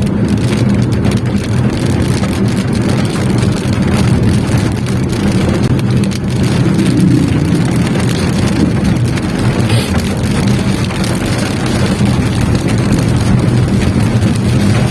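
Steady low car engine hum heard from inside the cabin, with light rain falling on the car.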